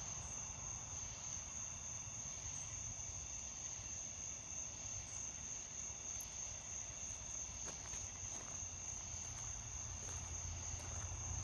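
Crickets trilling steadily, one unbroken high-pitched tone.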